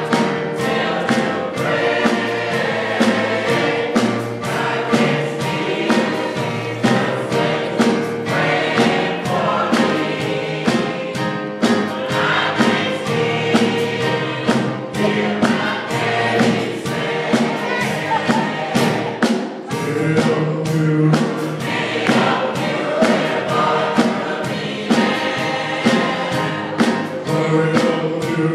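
Gospel choir singing, with a steady beat of sharp strikes about twice a second.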